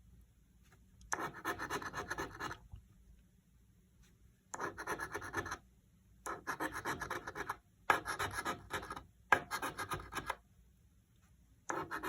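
Scratch-off lottery ticket being scratched to uncover numbers, in about six short runs of rapid strokes with brief pauses between them.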